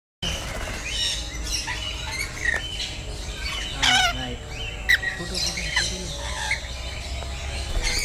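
Rainbow lorikeets calling: a continual run of short, shrill chirps and screeches, loudest about four and five seconds in.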